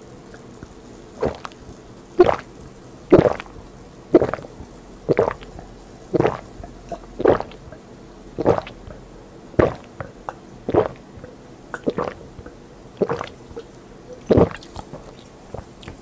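A person gulping Coca-Cola in one long chug from a glass, swallowing steadily about once a second, around thirteen gulps, the gaps growing a little longer toward the end.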